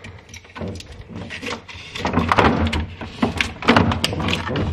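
A freezer drawer being tugged and rattled as it sticks. From about halfway through comes a quick run of knocks and clatter.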